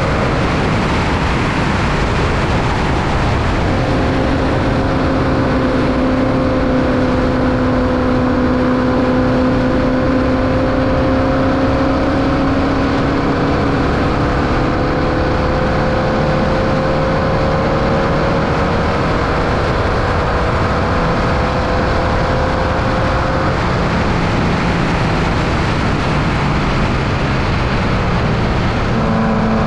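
Formula Vee race car's 1200cc Volkswagen air-cooled flat-four engine running hard at near-steady revs, heard onboard under a constant rush of noise. The engine note drifts only slightly in pitch over long stretches, then fades for a few seconds before a new, lower note comes in near the end.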